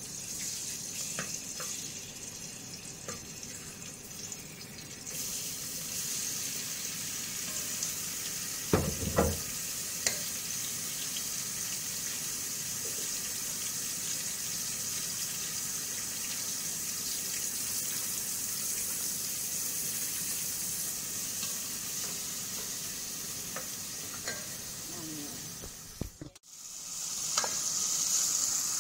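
Olive oil sizzling in a pot on a gas stove, with a loud knock about nine seconds in. After a brief break near the end, a louder sizzle as chopped onion, garlic and tomato fry in the oil.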